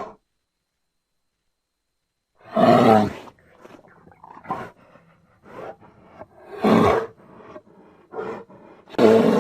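Bear roaring: three loud roars, the first about two and a half seconds in, the next near seven seconds and the last near the end, with shorter, quieter grunts between them.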